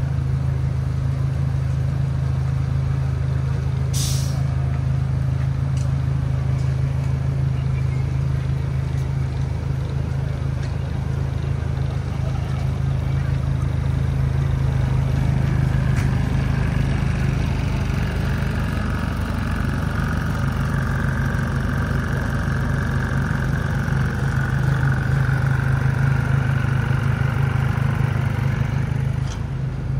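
Steady low hum of an idling engine, unchanging throughout, with one sharp click about four seconds in.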